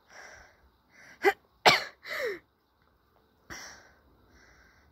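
A girl breathing heavily, out of breath from a strenuous climb. About a second and a half in, two sharp, loud bursts from her throat break the breathing.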